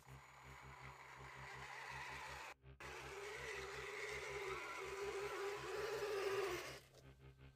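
Electric motor and drivetrain of an RC scale truck running under load, with a wavering whine that grows louder. It breaks off briefly about two and a half seconds in and stops abruptly near the end, over background music with a steady low beat.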